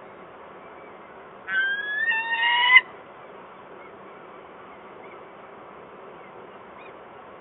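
A female peregrine falcon gives one drawn-out, slightly rising call of just over a second, about a second and a half in, over a steady background hiss.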